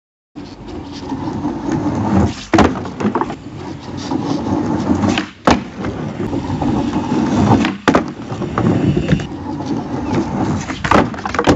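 Skateboard wheels rolling over wooden decking with a steady rumble, broken about every two and a half to three seconds by a sharp wooden clack of the board. Four clacks in all, the pop and landing of ollie attempts.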